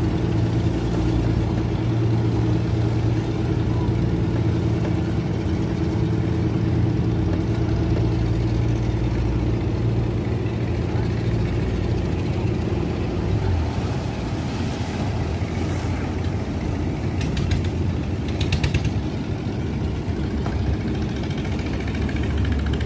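Fishing boat's engine running steadily; about halfway through its even note breaks up and it gets slightly quieter.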